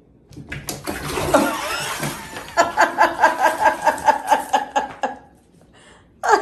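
Water splashing in a filled bathtub as a cat scrambles out of it, followed by a person laughing hard in a fast run of 'ha-ha' bursts for about two and a half seconds.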